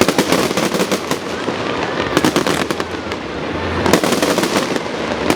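Fireworks display going off: a dense run of irregular bangs and crackling, with a few louder bangs about two and about four seconds in.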